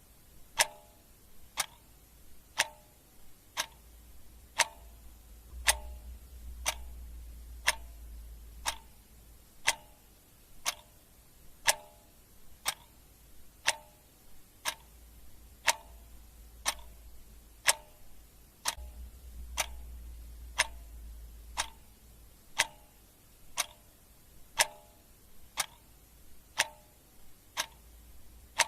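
Clock ticking steadily, one sharp tick a second, the ticks alternating slightly in tone like a tick-tock.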